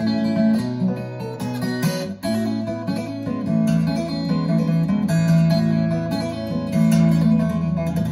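Recorded music played over a hi-fi stereo's pair of speakers and picked up in the room: an instrumental piece led by plucked guitar, with sustained notes changing every second or so.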